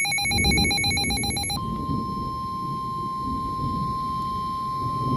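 Emergency Alert System alert tones for a severe thunderstorm warning: a fast-pulsing electronic ringing, which about a second and a half in gives way to the steady single-pitch 1050 Hz warning alarm tone of NOAA Weather Radio. A low rumble sits underneath.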